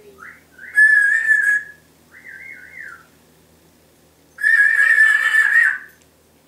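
Timneh African grey parrot whistling: short rising-and-falling whistles in runs of two or three, between two loud, harsh, steady calls about a second and a half long, one about a second in and one about four and a half seconds in.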